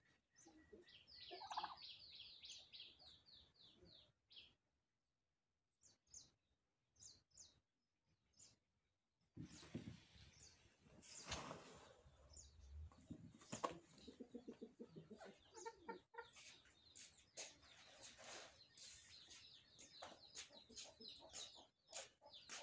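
Domestic turkeys calling, with runs of quick, repeated clucking notes and scattered short calls around a displaying tom. The calls stop for several seconds about a third of the way in, then resume.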